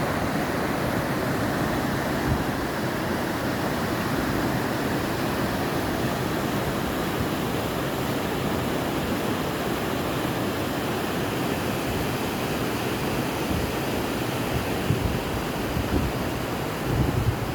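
Yamuna river rushing with a steady, even noise, with a few low bumps near the end.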